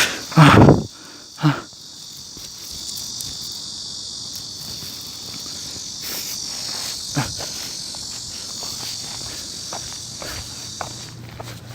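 A steady, high-pitched insect chorus buzzing, which cuts off suddenly shortly before the end. A loud thump comes about half a second in, with a few softer knocks later.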